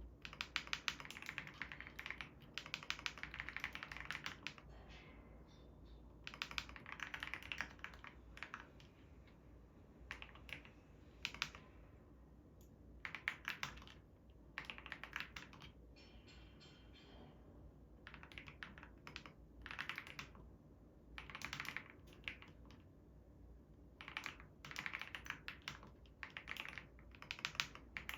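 Typing on a COX CF75 mechanical keyboard with orange switches: quick runs of key clicks in bursts of a few seconds, with short pauses between them.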